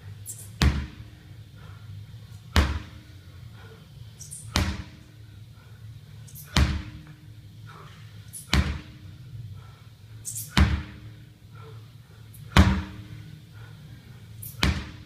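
Sledgehammer striking a tire, eight heavy thuds evenly about two seconds apart.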